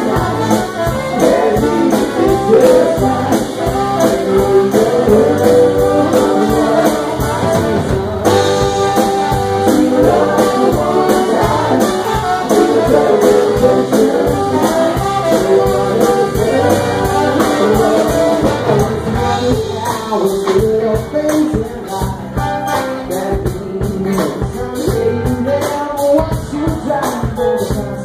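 Live band playing amplified music, with electric guitar, bass and a steady drum beat, and singing.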